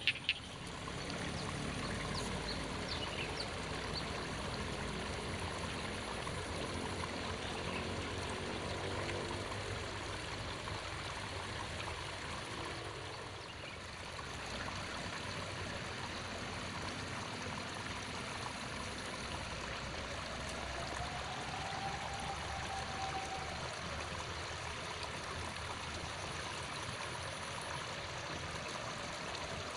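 Steady trickle and rush of flowing water in a flooded rice paddy, with a faint brief whistle rising and falling about two-thirds of the way through.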